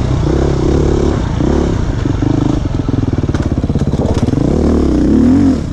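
Beta 500 RRS single-cylinder four-stroke dirt bike engine running through tight woods, its revs rising and falling as the throttle is worked. About halfway through it drops to low revs, where the separate firing pulses can be heard, then revs up again near the end.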